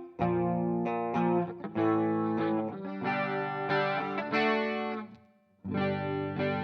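ESP LTD M100FM electric guitar played through a Cuvave Cube Baby amp modeler with cabinet impulse responses, recorded direct: a run of struck chords and notes, several cut short, with a brief break about five seconds in before the playing resumes.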